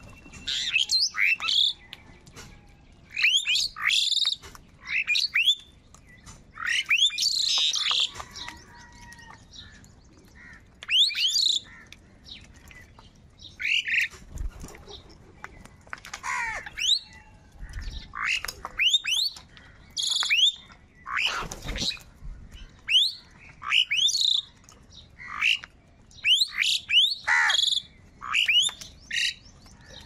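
A flock of house crows cawing while squabbling over scattered food: many short caws in quick, irregular clusters, often several birds at once, with brief lulls between.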